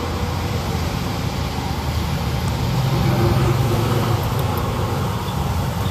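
Steady low background rumble with no distinct strokes or clicks.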